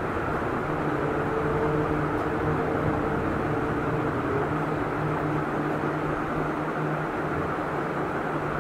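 Steady rushing background noise, with a faint low hum held at one pitch from about a second in until about seven seconds in.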